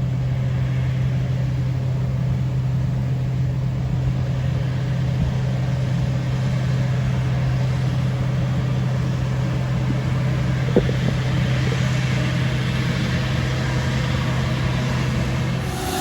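Engine running at a steady speed with a constant low hum, and a short click about eleven seconds in.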